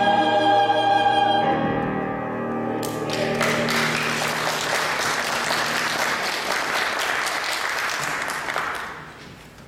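Church choir and piano ending an anthem on a held final chord that dies away about two seconds in, followed by the congregation applauding for about six seconds, fading out near the end.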